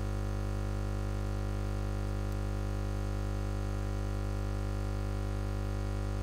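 Steady electronic buzzing drone: a stack of unchanging tones, strongest in the deep bass, with a faint hiss above. It has the sound of a fault in the audio feed (a hum or a stuck sound buffer) rather than anything in the room.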